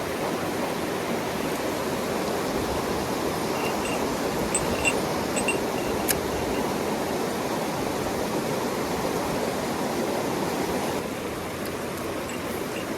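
Mountain stream flowing, a steady wash of running water. A few short high peeps and a single sharp click come around the middle. The water noise drops slightly in level near the end.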